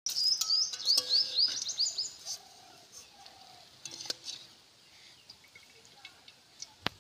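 A small bird chirping a quick run of short rising notes for about two seconds, then quieter with a few scattered clicks and one sharp click near the end.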